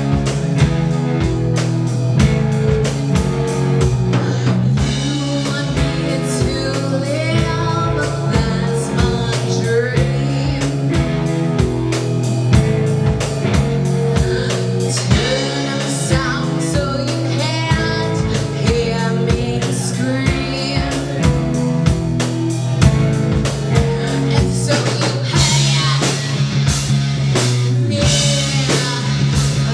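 Live rock band playing: distorted electric guitars and a drum kit with steady beats, and a woman singing into a microphone.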